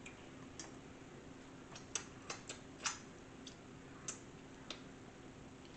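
Close-up eating sounds: about ten sharp, irregular clicks and crunches, bunched in the middle, from chewing a crunchy taco shell and a fork working at the food on the plate. A faint steady hum runs underneath.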